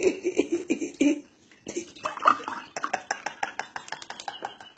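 A woman laughing in short, choppy bursts, with a brief pause about a second in.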